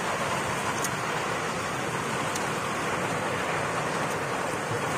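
Steady rushing background noise at an even level, with no distinct event.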